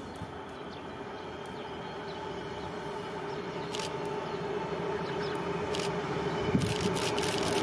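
Diesel locomotive approaching, its engine drone growing steadily louder, with a run of rapid clicks from the wheels starting near the end.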